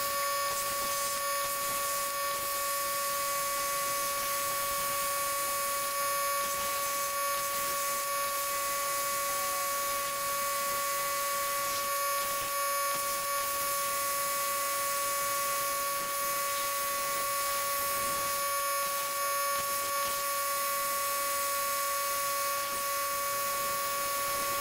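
CNC plasma table with a Razorweld 45 A plasma cutter cutting 3/16-inch mild steel plate: a steady hiss of the arc and air with a constant high-pitched whine.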